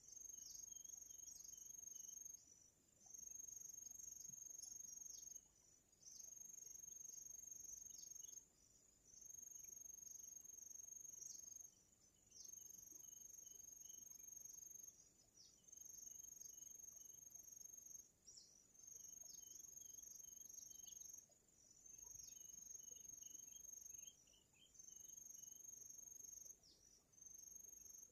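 Faint insect trilling, cricket-like: a high steady trill in bouts of two to three seconds with short breaks, over and over, with fainter scattered chirps beneath.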